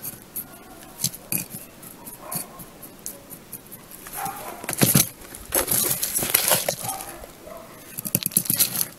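A metal garden trowel scraping and scooping gritty, pebbly potting mix into a small pot, with the crunch and rattle of small stones. The scraping is heaviest in the middle and ends in a quick run of clicks.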